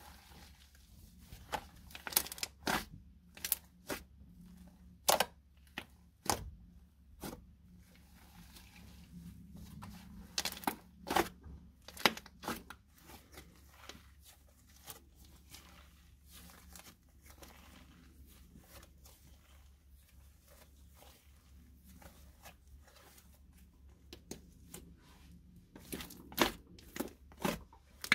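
Hands squishing, stretching and tearing a thick, grainy slime made with glitter glue and fake snow, giving irregular sharp pops, crackles and tearing sounds. The pops thin out in the middle of the stretch and come thick again near the end.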